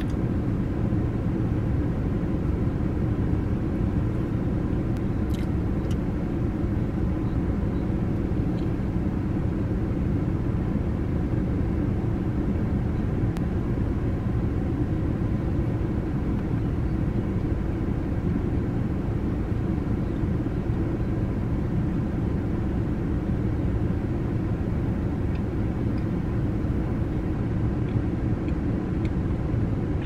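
Steady low rumble of a stationary car's running engine, heard from inside the cabin, with a few faint clicks from hands handling a food wrapper.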